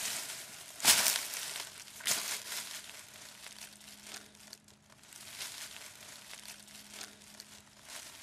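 Dry fallen leaves crunching and rustling as a person stirs on the forest floor, with two louder crunches in the first couple of seconds.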